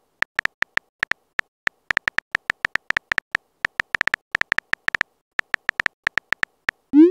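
Phone keyboard typing sound effect: a rapid, uneven run of short ticks as a text message is typed, ending right at the end with a quick rising swoosh as the message is sent.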